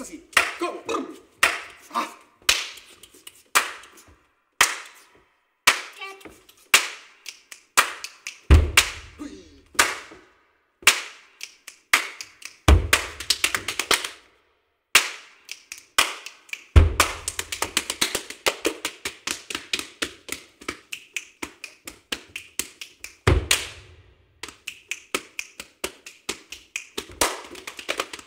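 Body percussion by two performers: hand claps, slaps on the body and barefoot stamping on a wooden stage floor, in sharp rhythmic strokes. A few deep thumps land several seconds apart, and partway through the strokes come in a fast, dense flurry.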